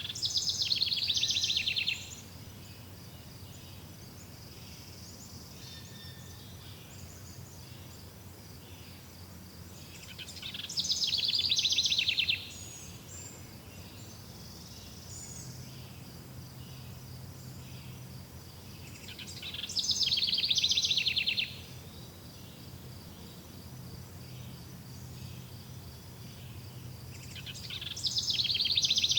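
Forest bird giving a loud, fast trill about two seconds long, four times about nine seconds apart. Underneath runs a steady high insect drone and a low rumble.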